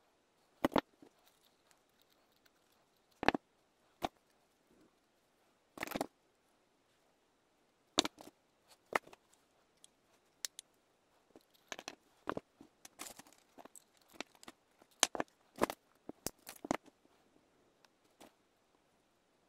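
Irregular clicks, taps and small knocks as metal parts, pliers and a wooden block are handled and worked on a wooden tabletop, more frequent in the second half.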